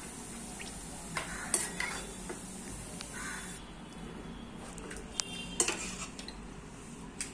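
Metal ladle scraping and clinking against a pressure cooker and a steel pan as cooked mutton curry is scooped out and transferred, with a few short sharp knocks scattered through.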